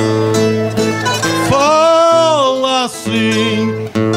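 Viola da terra and acoustic guitar playing the plucked accompaniment between sung verses of an Azorean cantoria. In the middle a voice holds one note for over a second, rising and then falling.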